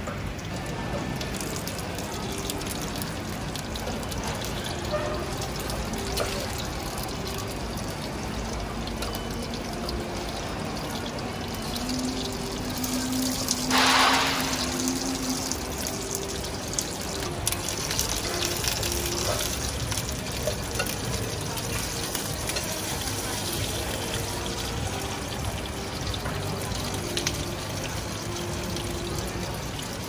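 Egg and seafood sizzling in a cast-iron pan on a gas burner, a steady hiss, with a brief louder burst of hissing about 14 seconds in. Background music plays throughout.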